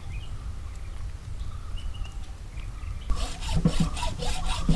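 Hacksaw cutting through a raw buffalo leg bone: quick back-and-forth rasping strokes, about six a second, starting about three seconds in.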